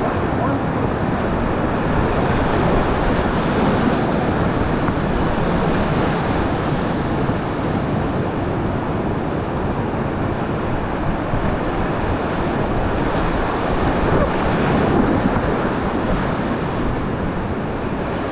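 Steady rushing of whitewater in a creek rapid, an even unbroken roar of water.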